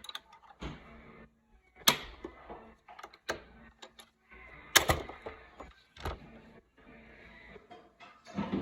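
Clicks and knocks from hands working an MHT-P80A thermal printer's plastic cover and paper roller, with two sharp clicks about two and five seconds in standing out over softer taps and rubbing.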